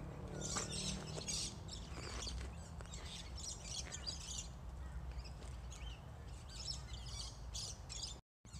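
Small birds chirping in quick repeated bursts, over a steady low rumble.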